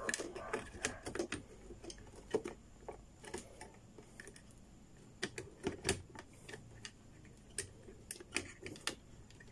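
Irregular small clicks and light taps of hands handling an opened LCD TV's circuit boards, pushing a plastic wire-harness connector into the power supply board before testing the set.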